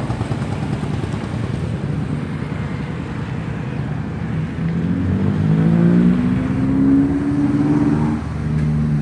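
Diesel engine of a loaded homemade 4x4 plantation hauler built on a Mitsubishi PS100 truck chassis, running with a rapid diesel clatter, then revving up about halfway through, its pitch rising twice as it works under load.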